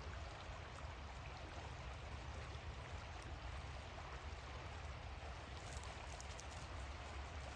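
The Little Miami River flowing: a faint, steady rush of moving water.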